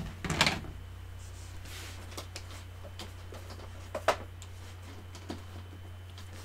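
A steady low electrical hum with a few sharp clicks, the loudest a double click about four seconds in, and brief faint rustling.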